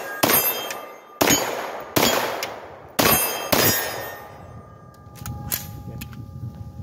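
Five 9mm shots from an AR-style gun fitted with a linear compensator, firing 115 grain ammunition. The shots come roughly a second apart, each trailing off in echo. Light clicks and a faint lingering ring follow near the end.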